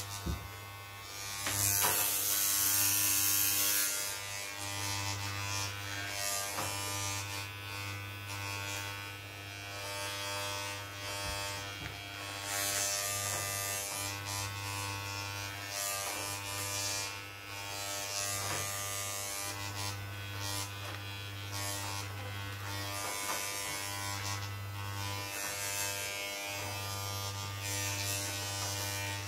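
Corded electric hair clippers running with a steady buzzing hum, and a rasping hiss that swells each time the blades pass through the hair, loudest about two to four seconds in.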